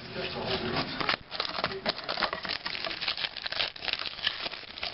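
Trading cards and card packs being handled and flipped through, giving a quick run of crinkling rustles and clicks.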